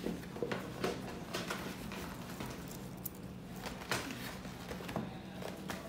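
Rustling and brief handling noises as a T-shirt is handled and turned over on a table, with a steady low hum underneath.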